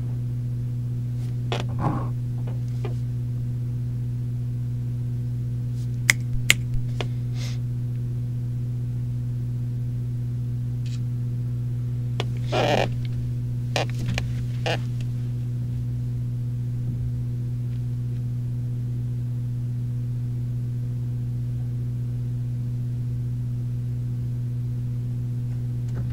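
Steady low electrical mains hum on an interview-room recording, with a few sharp clicks about six seconds in and brief rustles near the middle.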